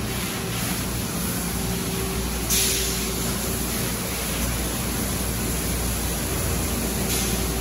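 Automatic car wash tunnel equipment running: a steady spraying hiss over a low machine hum. A sudden louder burst of high hissing starts about two and a half seconds in, and another comes near the end.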